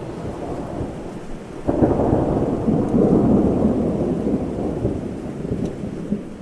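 Thunder over steady rain: a rumble breaks in suddenly about two seconds in, rolls on low and loud, and slowly dies away near the end.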